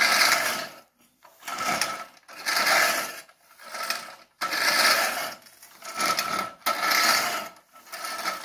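Manual push reel mower whirring in short strokes about once a second as it is shoved back and forth, its spinning reel blades cutting grass.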